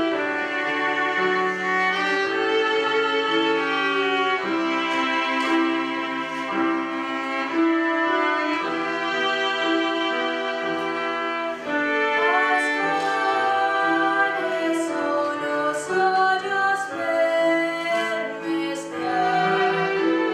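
Background music: a slow piece for bowed strings led by a violin, with long held notes.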